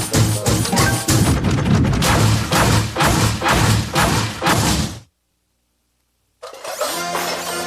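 Cartoon soundtrack music with a fast, hard-hitting beat that cuts off abruptly to silence about five seconds in. About a second and a half later the music comes back with held, sustained notes.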